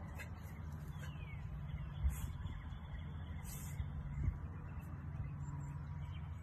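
Steady low outdoor rumble, like distant traffic, with a faint hiss over it and a few brief high rustles.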